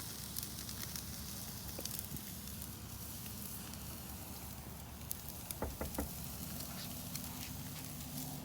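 Steaks and sausages sizzling on a grill over the fire, with small crackles throughout and two short knocks about five and a half to six seconds in.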